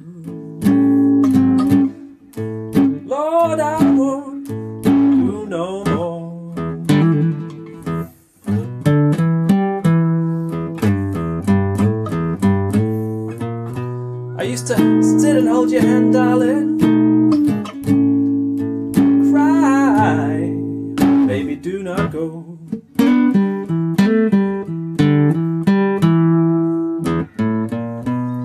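Nylon-string classical guitar playing a blues passage of plucked notes and chords, with no singing over it.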